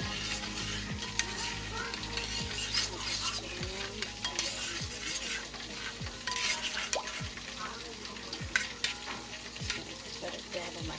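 A metal spoon stirring and scraping a thick spiced honey mustard sauce in a ceramic dish, with scattered light clicks against the dish over a hiss.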